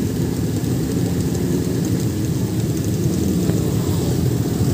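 Several motorcycle engines running together at low speed, a steady low sound with no revving.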